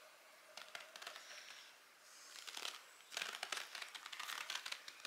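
Self-adhesive elastic bandage crackling as it is pulled off the roll and wrapped around a foot. Faint scattered crackles at first, then a dense run of crackling from about two seconds in.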